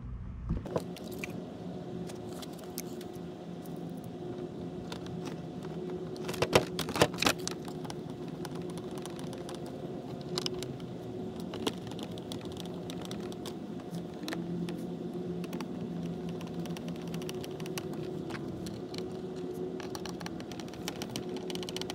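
Screws being driven by hand into the plastic driver door trim panel of a 2013 Honda Fit, giving scattered small clicks and creaks of screwdriver and plastic trim. A cluster of louder clacks comes about six to seven seconds in, over a steady low hum.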